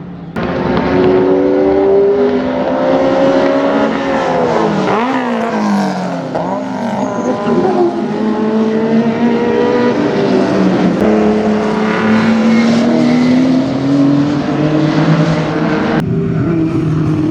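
Historic Group A/Group C touring car engines at racing speed on track. Around four to six seconds in, one engine's note drops in steps as it downshifts, then climbs slowly under acceleration before the sound switches abruptly to another car near the end.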